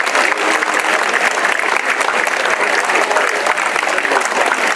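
A large crowd applauding, many hands clapping in a dense, steady patter.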